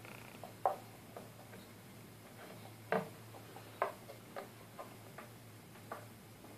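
Irregular light clicks and taps, about a dozen, from handling an amplifier board with a finned heatsink while fitting it into a wooden subwoofer cabinet; the loudest fall just under a second in and around three and four seconds in. A faint steady low hum runs underneath.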